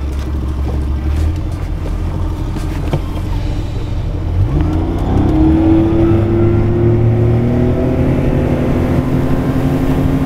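Outboard motor on an aluminium fishing boat idling, then throttled up about four seconds in, its pitch rising and holding higher and louder as the boat accelerates onto plane.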